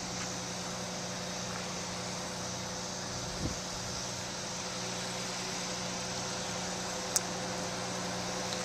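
Bus engine running steadily at low speed, heard from inside the cabin, with a low thump about three and a half seconds in and a sharp click near the end.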